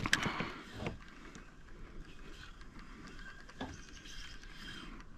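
Light knocks of fishing tackle and kayak handling, a few in the first second and one more about three and a half seconds in, over a faint steady hiss while a lure is retrieved.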